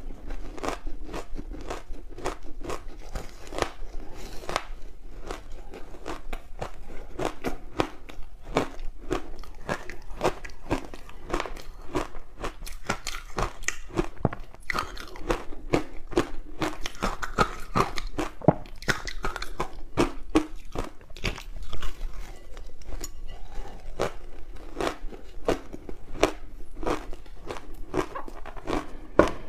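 Close-miked biting and chewing of soft ice balls coated in green barley powder: a dense run of small crunches and crackles, with a few louder crunches in the second half.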